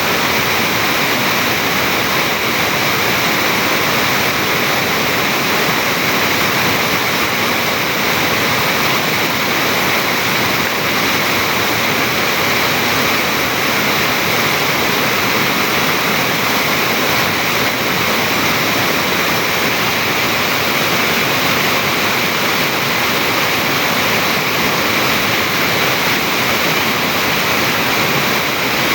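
Stream water rushing and splashing over rocks in a steady, even flow.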